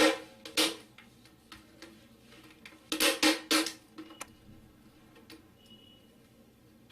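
Clicks and crackles of a hard plastic container being handled and worked on, with louder bursts of plastic noise right at the start and about three seconds in.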